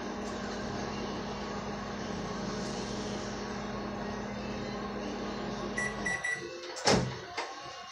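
Microwave oven running with a steady hum, which cuts out about six seconds in as it beeps three times to signal the cooking time is up; a second later comes a loud sharp click of its door being opened.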